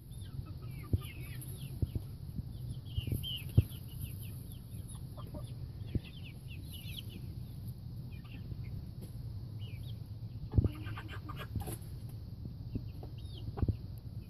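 Chickens clucking and calling in a coop, with many short, high, falling calls throughout and a few dull knocks.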